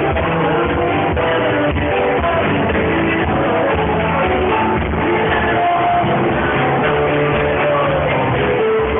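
Live rock band playing a song, with drum kit and guitar, recorded on a camera phone.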